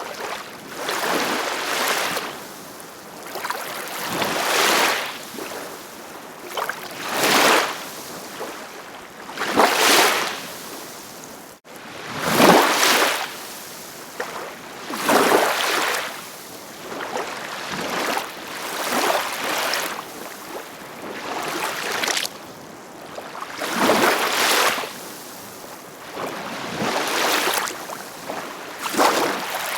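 Ocean surf breaking and washing in, one swell of noise every two to three seconds, with a momentary break in the sound a little before halfway.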